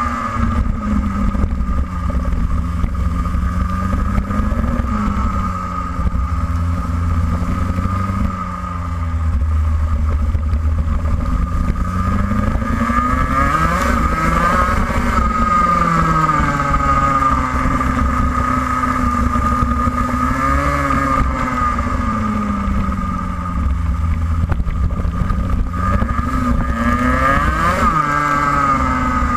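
Racing kart's engine heard onboard, revving up and dropping back several times as the kart accelerates along the straights and lifts for the corners, over a steady low rumble.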